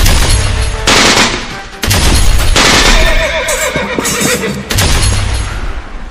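Loud dramatic sound effects from a film soundtrack laid over the video: a run of heavy, noisy blasts about a second apart, with a wavering high cry about three seconds in.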